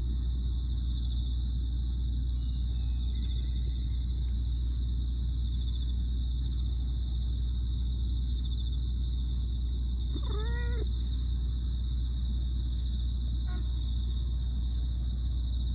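A black cat meowing once, a short call that rises and falls in pitch, about ten seconds in.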